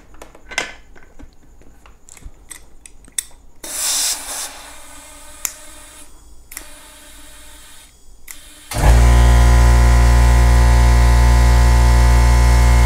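A tyre inflator chuck clicks against a tyre valve stem and lets out a short hiss of air about four seconds in. Nearly nine seconds in, an air compressor starts abruptly and runs loud and steady with a deep hum.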